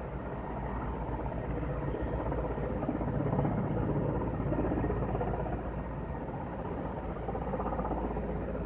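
Distant firefighting aircraft droning over the sea, a steady rumble that swells to its loudest about three to five seconds in and then eases off a little.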